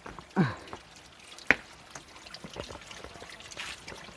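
Shallow creek water trickling and dripping over rocks. A short falling vocal exclamation comes about half a second in, and a single sharp knock about a second and a half in.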